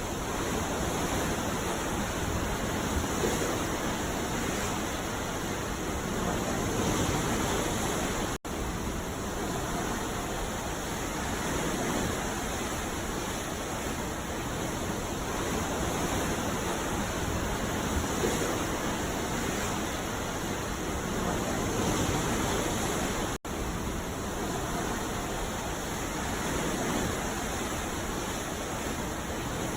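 Ocean surf on a beach: a steady rushing wash of waves, swelling and easing every few seconds, that cuts out for an instant twice.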